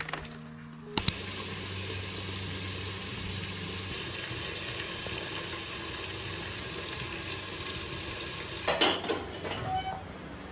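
Food sizzling steadily in a hot pan, opened by two sharp knocks about a second in, with a clatter of a utensil against the pan near the end.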